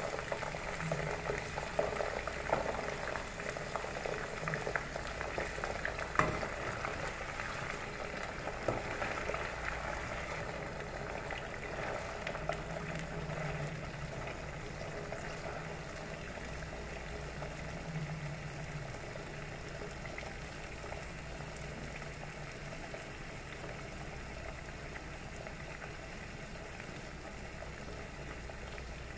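Cauliflower florets frying in hot oil, a steady crackling sizzle. It is busier in the first ten seconds, then settles to an even sizzle, with a sharp tap about six seconds in.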